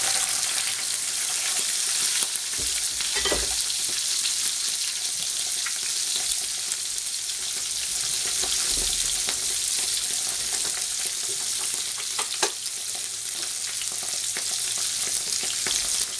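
Sea bass fillets frying skin-down in melted butter in a frying pan: a steady high sizzle, with a few short sharp ticks now and then.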